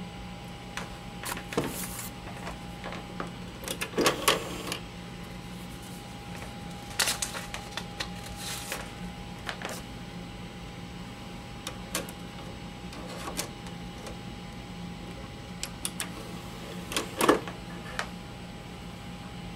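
Computer cooling fan running steadily with a hum and a constant high tone, a fan the owner calls very annoying. Scattered clicks and rustles come every few seconds, loudest about four and seventeen seconds in.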